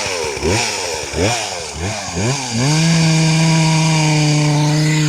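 Two-stroke chainsaw engine revved in quick repeated throttle blips, about two a second, then held at a steady high speed from about halfway through. The saw is being warmed up.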